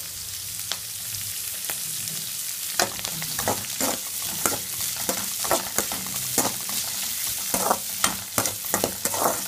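Sliced onions and green chillies sizzling in hot oil in a kadai, stirred with a perforated metal spoon. From about three seconds in, the spoon clicks and scrapes against the pan many times over the steady sizzle.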